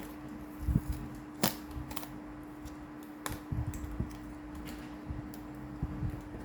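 Irregular clicks and taps of a speed cube's box and packaging being handled and opened, with a few sharper knocks about a second in.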